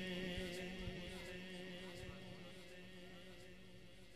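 The end of a chanted line of devotional poetry in praise of Hussain: a held sung note with its harmonics dies away slowly, fading to a faint tail by the end.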